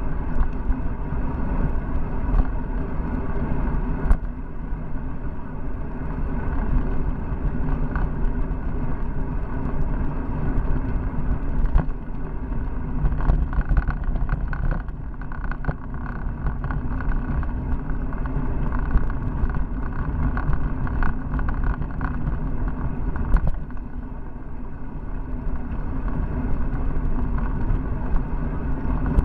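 Steady wind and road rumble picked up by a Cycliq Fly12 camera mounted on the handlebars of a moving bicycle, with scattered knocks and rattles from bumps in the road surface.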